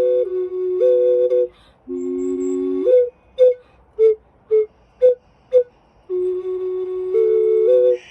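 Ocarina playing a slow melody: long held notes, often two sounding together, then a run of about five short, separate notes, then long held notes again.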